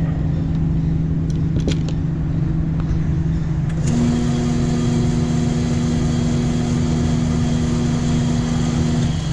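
Car engine running steadily. About four seconds in, a steady higher hum and a hiss join it and last until near the end.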